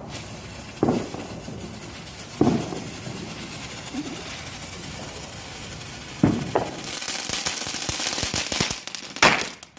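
Small consumer firework going off: a steady hiss with four sharp bangs, about a second in, two and a half seconds in, six seconds in and near the end, and a louder crackling hiss in between the last two.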